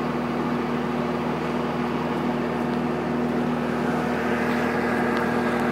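Engine of heavy construction machinery running steadily at a constant speed, a continuous even drone.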